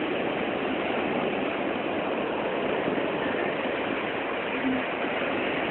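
Steady, even rush of ocean surf breaking and washing up the beach.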